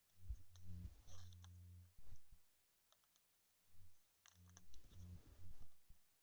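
Faint clicks and light rustling from trading cards being handled, with a low hum that comes and goes.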